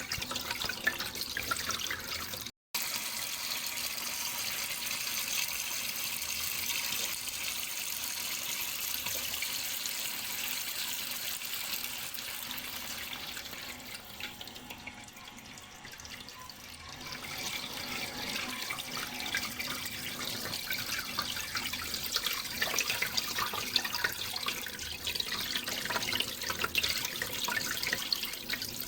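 Running water: a steady splashing flow. It drops out completely for a split second near the start and softens for a few seconds around the middle.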